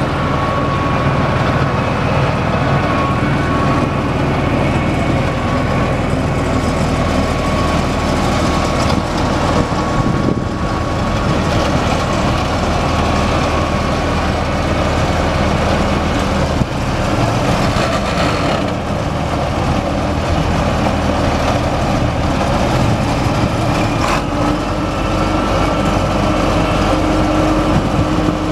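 International Harvester 3588 tractor's turbocharged six-cylinder diesel engine running steadily, with a thin high tone over the engine note.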